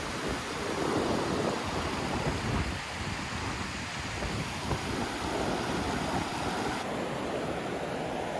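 River water rushing steadily over a low concrete weir, a constant whitewater noise, with wind buffeting the microphone.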